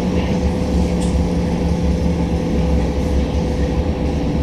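A tram running: a steady rumble with a constant electric hum.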